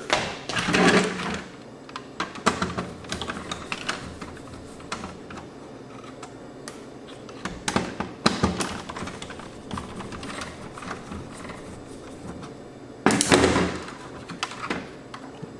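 Scattered clicks and taps of plastic and metal parts being handled as the button board is worked loose from an AV receiver's front panel. Louder clattering comes about a second in and again near the end.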